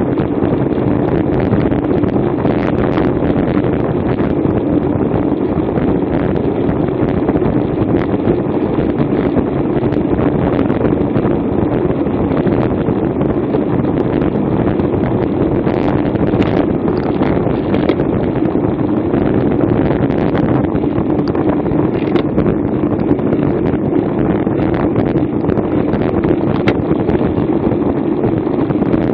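Steady wind rush over the microphone of a Garmin VIRB action camera mounted on a racing bicycle moving at speed, with a few faint clicks.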